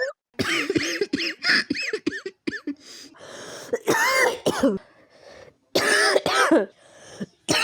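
A person coughing in several harsh, rasping fits, with a breath drawn between them about three seconds in: a chronic smoker's cough.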